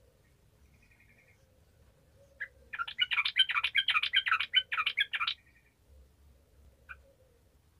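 Yellow-vented bulbul singing. About three seconds in it gives a loud, bubbly burst of song lasting about two and a half seconds, with faint short calls before and after.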